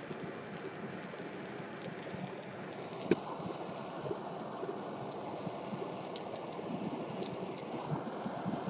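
Steady hiss of a gas torch flame with scattered crackles and pops from the burning, melting plastic yogurt cup and its contents; one sharper pop about three seconds in.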